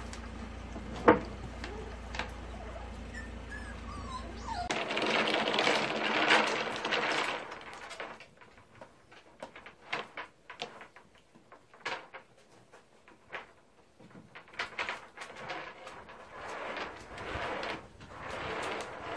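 Puppy whimpering on and off, with scattered soft clicks and a sharp knock about a second in.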